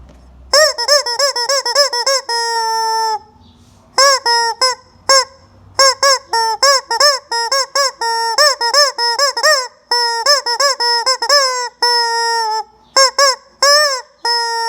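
Rubber squeeze-toy chicken squawking over and over: quick runs of short honking squeaks, several of them ending in one longer held honk, with brief pauses between runs.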